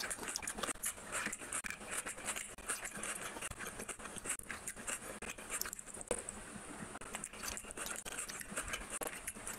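Close-miked wet eating sounds: a hand squishing and mixing rice with fish curry on a plate, with chewing and lip smacking, a dense run of small wet clicks.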